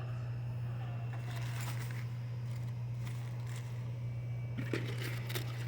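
Packaging being handled, with crinkling and rustling in two short spells, about a second in and near the end, over a steady low hum.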